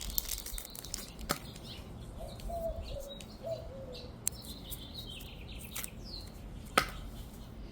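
Packaging being handled: light rustling with a few sharp clicks and taps, the loudest near the end, and a brief faint squeak about two to four seconds in.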